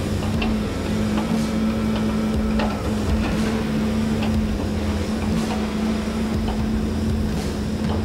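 Steady diesel engine hum from a Tigercat knuckleboom log loader at work, with a few faint knocks now and then.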